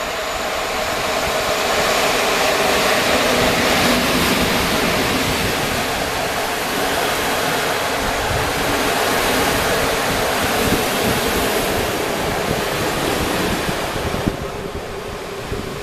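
EP07 electric locomotive and its train of passenger carriages passing through the station: a loud, steady rush of wheels on rail and carriages going by, which thins about fourteen seconds in as the tail of the train passes.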